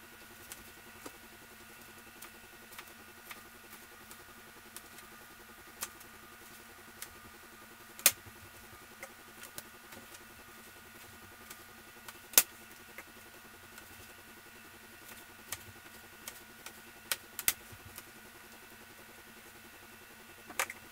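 Chef's knife dicing tomatoes on a plastic cutting board: irregular knocks of the blade striking the board, a few much louder than the rest.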